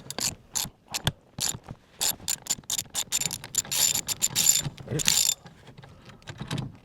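Hand tool working the set screws of a steering wheel puller to free a steering wheel, metal clicking like a ratchet in irregular strokes, with a dense rapid run of clicks from about two to five seconds in.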